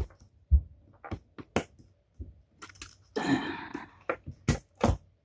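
A string of sharp clicks and taps from hands handling the opened controller's plastic parts and wires, with a short scraping rustle about three seconds in.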